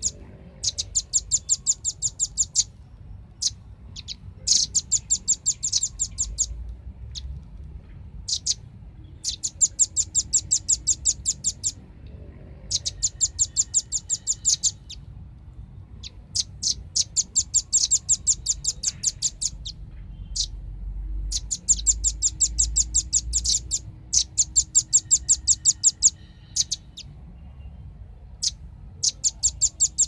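Velvet-fronted nuthatch calls played as a lure track: rapid, high trills of sharp notes, about ten a second, in bouts of about two seconds, repeated with short gaps and a few single notes in between.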